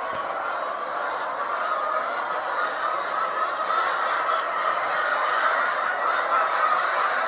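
Steady din of many caged laying hens calling together, a dense continuous chatter that grows slightly louder near the end.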